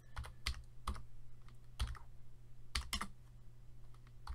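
Computer keyboard being typed on slowly: single keystrokes, sharp clicks with irregular gaps between them, some in quick pairs.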